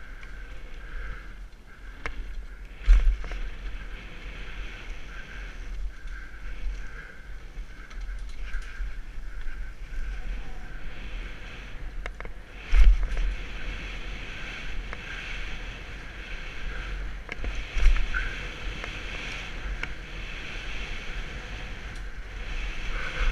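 Mountain bike descending a dirt trail at speed, heard from a helmet-mounted camera: wind buffeting the microphone over a steady rattle and rumble of tyres and frame. Three heavy thumps stand out, about 3, 13 and 18 seconds in, as the bike lands or hits bumps.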